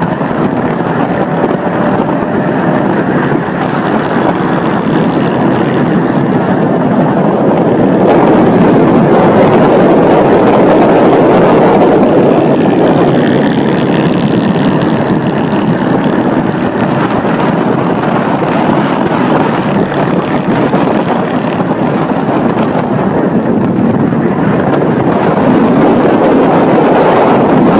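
Honda Shadow V-twin motorcycle with a 'seca sovaco' short open exhaust running at road speed, its exhaust mixed with heavy wind noise on the microphone. It gets louder about eight seconds in.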